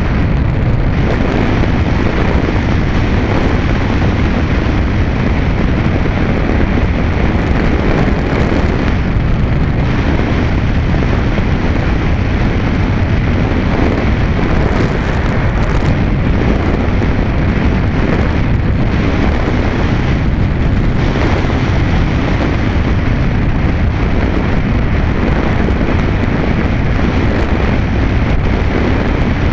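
Loud, steady rush of wind over the microphone of a camera riding on a Multiplex Easystar electric foam glider in flight, mixed with the noise of its electric motor and pusher propeller.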